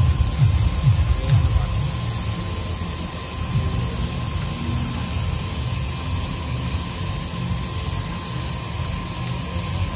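Manual engraving machine's spindle running steadily as its cutter engraves a laminated plastic name tag: a low motor hum with a steady whine and hiss.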